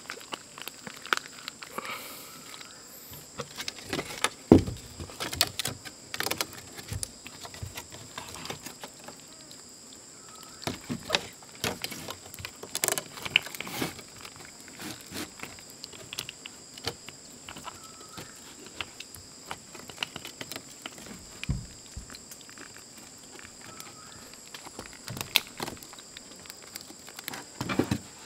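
Scattered clicks, knocks and rustles of split bamboo being handled and fitted around meat for a roasting skewer, over a steady high-pitched drone of forest insects.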